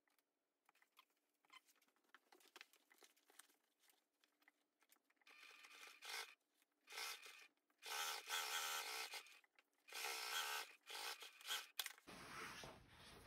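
Stiff canvas and waxed-canvas bag panels rustling and sliding as they are handled. Faint scattered rustles at first, then from about halfway several louder rustles of half a second to a second or so each.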